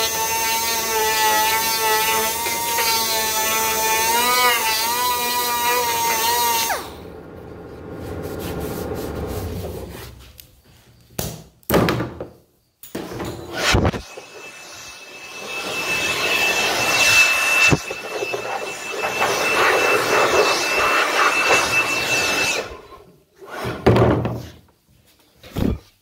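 Power grinder working fiberglass, its whine wavering up and down as it is pressed into the work, stopping suddenly about seven seconds in. Scattered knocks follow, then a second stretch of gritty grinding with a steady high whine, and a few more knocks near the end.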